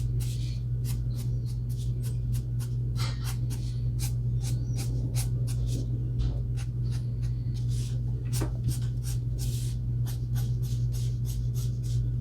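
Alcohol marker tip stroking across paper: quick, short scratchy strokes, several a second, as hair is coloured in. A steady low hum runs underneath.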